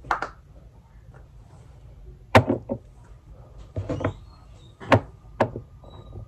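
Several sharp knocks and clunks of things being handled in a small room, about six in all, the loudest about two and a half and five seconds in.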